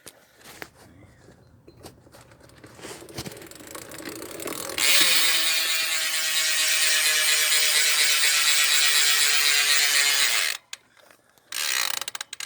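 Eclat Seismic rear hub of a BMX freewheeling as the back wheel spins, its ratchet making a loud, fast buzz that starts suddenly about five seconds in and stops abruptly near the end.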